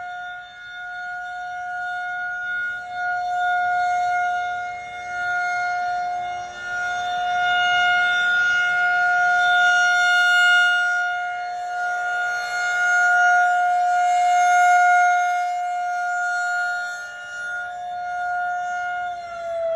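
Outdoor tornado warning siren sounding a steady wail on a test day: one held tone that swells and fades in loudness every few seconds. Near the end the pitch begins to slide down as the siren winds down.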